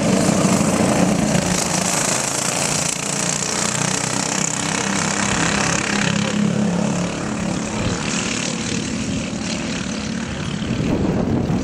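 Several racing go-kart engines buzzing at speed as a pack of karts laps the track, the engine note rising and falling.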